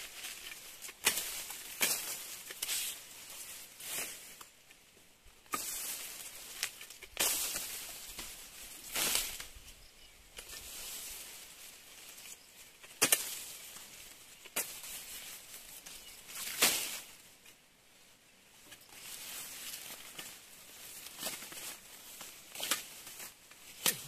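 Tall napier grass stalks being cut by hand with a blade: irregular sharp cuts every second or two, mixed with the swish and rustle of the long leaves.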